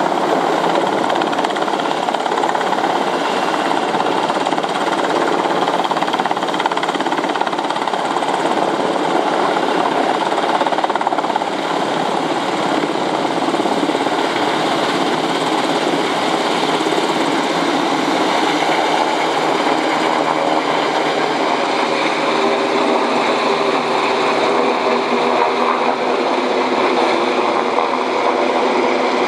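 Sikorsky UH-60A Black Hawk helicopter hovering close overhead, its rotor beating and twin turboshaft engines running, loud and steady, while it dips its slung water bucket into the pond and lifts it out full.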